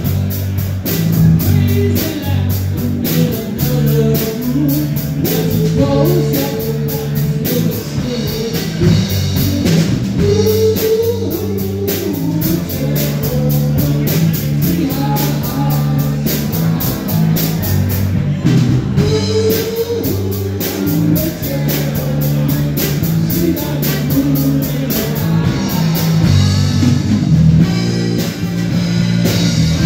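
Live rock band playing, with electric guitars, bass guitar and drum kit.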